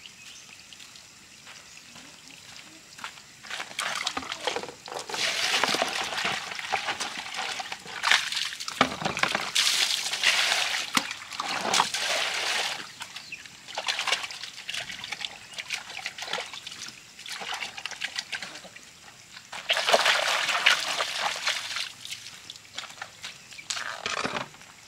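Water poured from a plastic dipper into a plastic basin several times, splashing and sloshing, then the basin tipped out onto the ground near the end.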